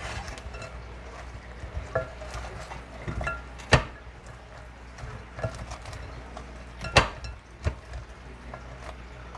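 Chicken wings being tossed in hot wing sauce: a utensil clinking and knocking against a bowl at an uneven pace, with two sharper knocks about three seconds apart.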